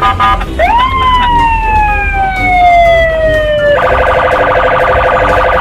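Police car siren: one wail that rises quickly, then falls slowly over about three seconds, then switches to a harsh, steady, buzzing multi-tone sound. A low rumble of traffic runs underneath.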